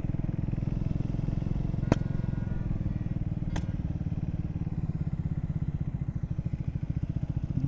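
Triumph Speed 400's single-cylinder engine running steadily under way, with two sudden sharp cracks about two and three and a half seconds in. This is the sudden noise the rider is hearing from the bike, which he later suspects came from plastic bottles on the road being crushed by vehicles.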